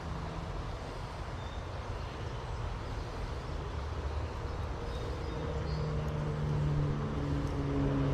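Steady outdoor rushing noise with a low rumble. Background music with sustained chords fades in over the last few seconds and grows louder.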